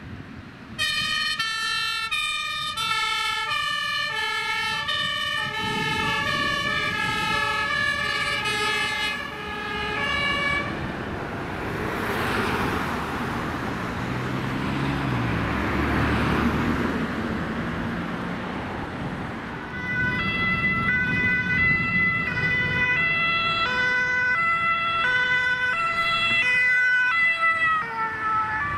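German two-tone emergency sirens (Martinshorn) on fire engines driving on an emergency run, alternating between a high and a low tone about twice a second. The siren stops about ten seconds in, leaving about nine seconds of engine and road noise from the passing vehicles. A second two-tone siren starts about twenty seconds in and drops slightly in pitch near the end as the vehicle passes close.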